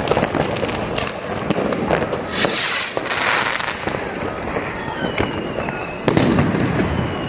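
Fireworks going off, with scattered sharp bangs and crackles throughout. About two and a half seconds in there is a hissing rush as a rocket launches, and about six seconds in a loud bang, with a falling whistle near the end.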